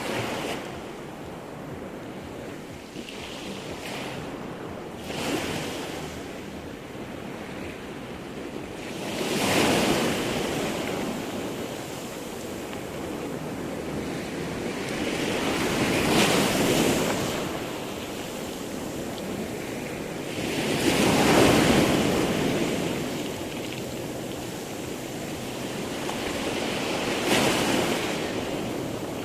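Sea surf: waves rolling in and breaking four times, each one swelling up and falling away again.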